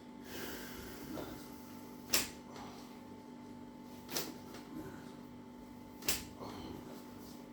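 Joints cracking during a chiropractic spinal adjustment: three sharp pops, about two seconds apart.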